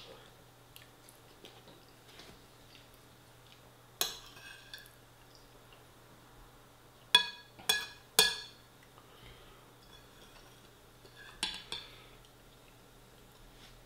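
A metal spoon clinking against a ceramic bowl as food is scooped up: one clink about four seconds in, three quick clinks around the middle, and two more near the end.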